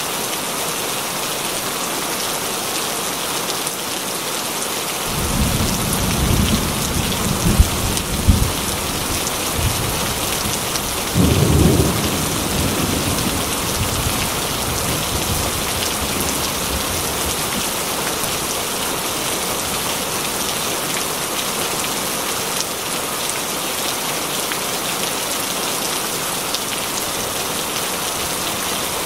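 Steady rain with thunder. A low rumble starts about five seconds in, with two sharp cracks inside it, and a second, shorter rumble follows a few seconds later.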